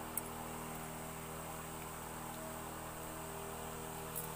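A steady low hum with a couple of faint clicks, one just after the start and one near the end.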